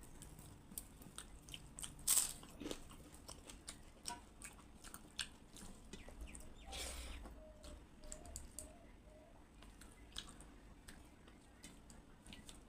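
A person chewing and crunching food close to the microphone: a string of small sharp crunches and mouth clicks, with one louder crunch about two seconds in.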